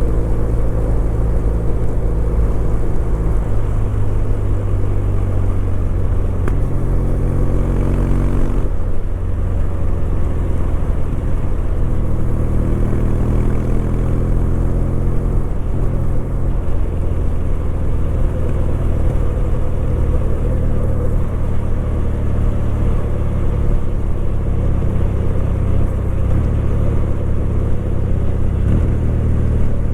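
Kawasaki W800's air-cooled parallel-twin engine running under way. Its note holds steady for a few seconds at a time, then steps to a new pitch as engine speed changes, with little wind noise over it.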